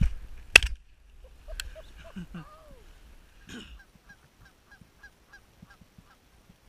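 A shotgun blast about half a second in, then a fainter crack about a second later. Goose honks follow, ending in a steady string of short honks, about three or four a second.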